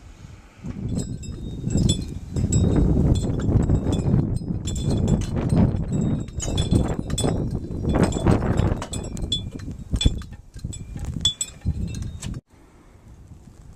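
Blizzard wind gusting hard against the microphone, with high metallic ringing tones chiming again and again over it. The wind noise cuts off abruptly near the end.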